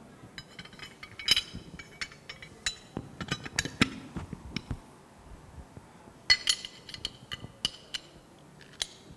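Metal drilling-jig parts being snapped and fitted onto an AR-15 80% lower receiver by hand: scattered light clicks and clinks with a short metallic ring, in three small clusters.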